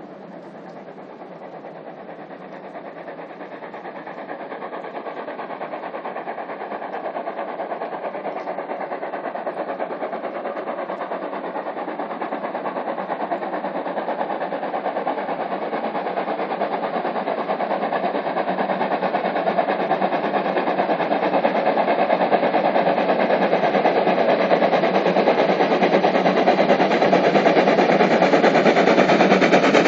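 Two DR class 01 steam locomotives working a train together, their rapid exhaust beats growing steadily louder as they approach.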